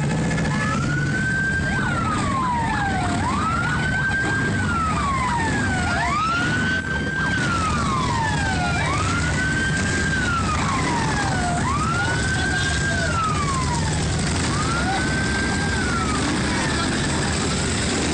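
A wailing siren cycling over and over: it rises quickly, holds its top pitch briefly, then slides down, about once every three seconds, six times, the last one fading. Underneath, a steady low rumble of motorcycle engines rolling past at walking pace.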